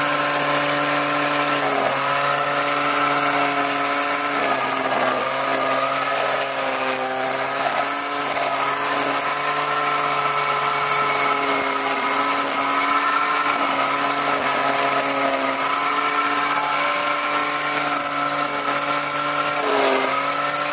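Handheld grass trimmer in edger mode running steadily while edging the lawn. Its pitch dips briefly a few times as the cutting head bites into grass and soil.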